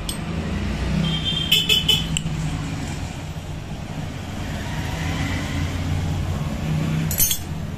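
A motor vehicle engine running steadily, with short sharp metallic clinks about one and a half to two seconds in and again near the end.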